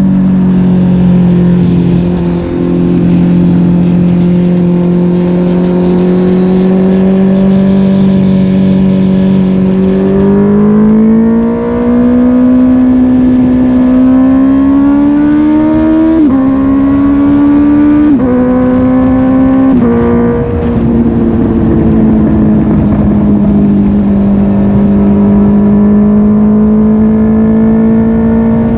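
Honda CB650R's inline-four engine running through a MIVV GP PRO Carbon aftermarket exhaust, heard from the rider's seat. It holds a steady pitch, then climbs as the bike accelerates, with quick drops in pitch near two-thirds of the way through as gears change, and settles back to a steady run.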